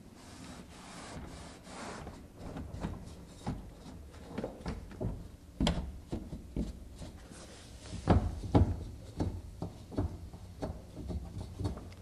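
Rag wiping dirt and old grease out of a garage door's metal roller track, with irregular rubbing and knocks as the hands work along it; a few sharper knocks come in the second half.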